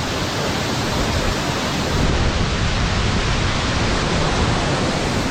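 Steady rush of a waterfall and river, a loud even roar of water that grows slightly louder about two seconds in.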